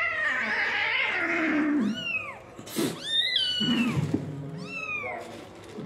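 Kitten mewing, a series of short high-pitched calls about once a second, after a longer, lower cat call in the first two seconds.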